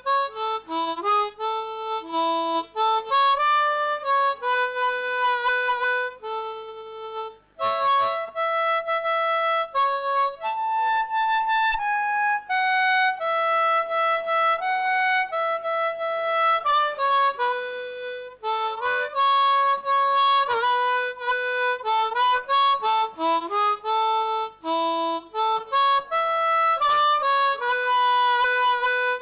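Solo harmonica playing a melody one note at a time, cupped in the hands against a handheld microphone, with a short pause about seven and a half seconds in.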